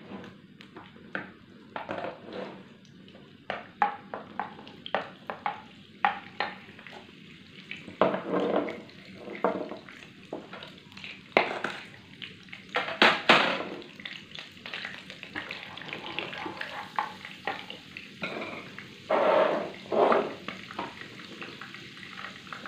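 Butter and oil frying in a wok as the butter melts, a light sizzle that grows thicker near the end. Scattered knocks and clatter run through it, loudest about halfway and again near the end.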